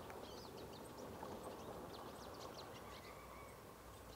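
Hooded siskins (pintassilgos) singing: a faint, rapid twittering of short, high chirps.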